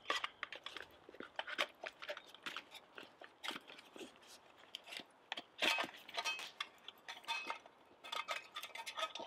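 Wood campfire crackling, with irregular sharp snaps and pops from the burning logs and embers.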